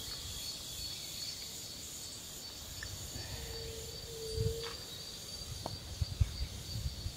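Steady high-pitched insect chirring, with a few soft low bumps in the second half and a brief low tone midway.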